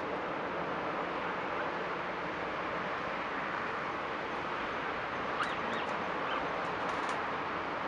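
Steady outdoor background noise, an even hiss with no distinct engine sound, with a few short bird chirps about five to seven seconds in.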